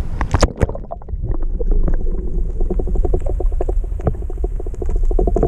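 Shallow sea water sloshing and splashing right at the microphone, sounding muffled, over a low wind rumble. A few sharper splashes come near the start, then a fast, dense patter of small water sounds.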